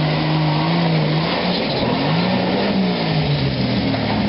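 Engine of a modified Jeep Wrangler 4x4 pulling under load as it climbs a steep dirt hill, holding a steady note and then revving up and back down partway through.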